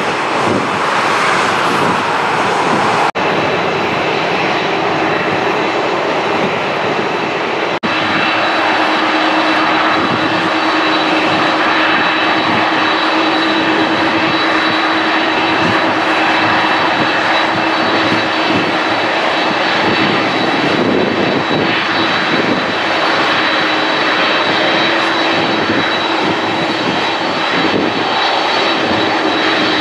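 Jet airliners taxiing, a Boeing 737 and then, for most of the time, a four-engined Boeing 747-400: turbofan engines running at low taxi power, a steady rushing noise with a high, even whine that comes in about eight seconds in. The sound breaks off briefly twice, about three and eight seconds in.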